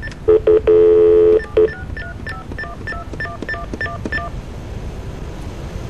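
Telephone line tone for about a second, then a quick run of about a dozen touch-tone (DTMF) keypad digits dialled at an even pace, a new number being called; faint line hiss after.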